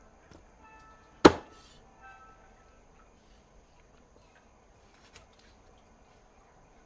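Kitchen knife chopping through pigeon meat on a chopping board: one heavy chop about a second in and another at the very end, with faint lighter knocks between. Faint background music plays under the start.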